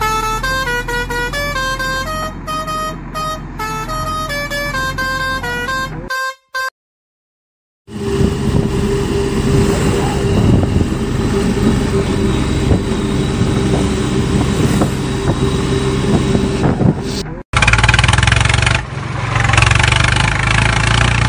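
An electronic beeping tune of single stepped notes, which cuts off about six seconds in to dead silence, followed by a steady, noisy vehicle sound effect with a low hum that gets louder and rougher near the end.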